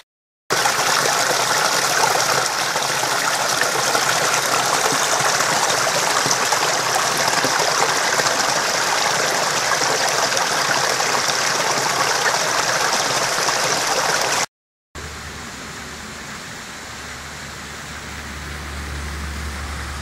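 A small mountain stream running over rocks close by, a loud steady rush of water. After a short break about fifteen seconds in, the water is quieter and farther off, with a low rumble beneath it.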